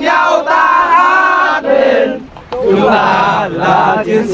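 A group of young soldiers shouting loudly together in unison, a marching chant or cheer, with a short break about halfway through.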